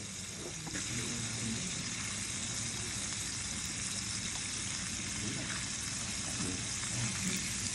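Japanese beef and vegetables sizzling steadily on a small metal grill pan over a tabletop burner, a constant frying hiss.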